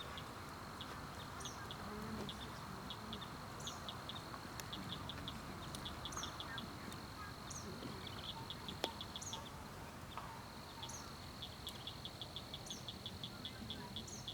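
Lakeside nature sounds: a bird repeats a short, high, falling call about every second and a half over a steady high insect trill, which breaks off for a moment past the middle. Among them are small regular clicks, and one sharp pop from the campfire comes about nine seconds in.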